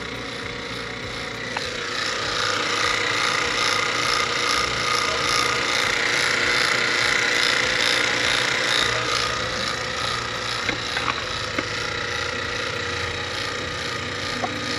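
Refrigeration vacuum pump running steadily as it evacuates a ductless mini-split's refrigerant lines: a low mechanical hum with a hiss of air leaving the pump's exhaust port. It grows louder from about two seconds in.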